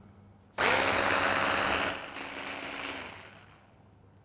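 Electric mini chopper (hand-blender chopper attachment) spinning up about half a second in with a rising whine, then running loud as it blends a liquid soy-teriyaki marinade with ginger and garlic. It drops to a lower level about two seconds in and winds down near the end.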